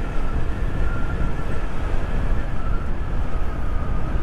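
Motorcycle riding at about 50 km/h: steady wind rumble over the camera's microphone, with the engine running underneath.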